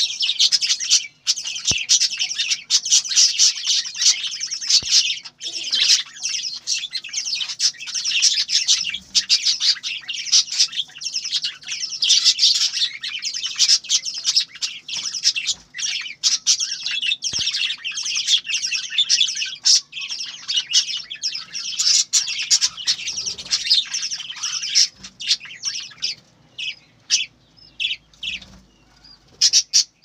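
A flock of budgerigars chattering in a dense, continuous stream of high chirps, thinning to separate short chirps in the last few seconds.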